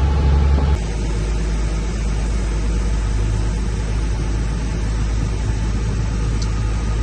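Steady low rumble and hum of a running vehicle. It changes abruptly and drops a little less than a second in.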